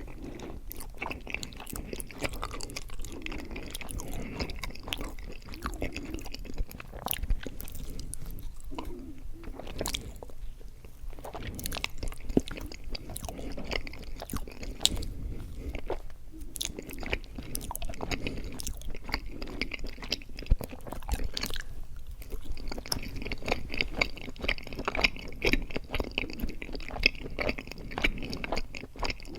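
Close-miked chewing of mochi ice cream: continuous wet, sticky mouth sounds with many small clicks, a little busier near the end.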